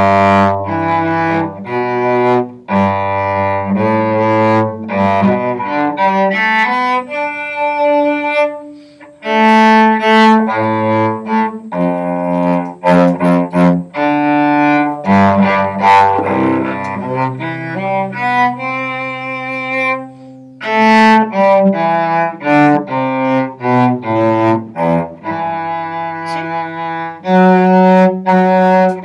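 Solo cello bowed (arco), playing a melody note by note at a slow learning tempo, with short breaks between phrases.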